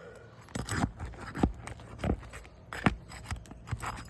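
A metal roofing tool tapping and scraping on asphalt shingles while a nail is worked out: a series of irregular sharp taps, about seven in four seconds.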